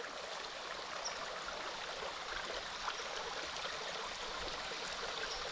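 Steady, even rushing hiss with a few faint ticks.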